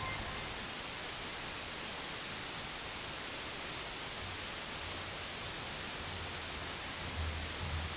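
Steady hiss of the hall's sound system and recording in a pause between speakers, with a few faint low thuds near the end.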